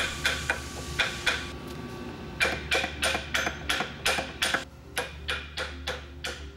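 Ball peen hammer tapping on the lower steering knuckle bearing cap of a Toyota solid front axle to jar it loose: sharp metal-on-metal taps, a few at first, then after a short pause a steady run of about two to three a second.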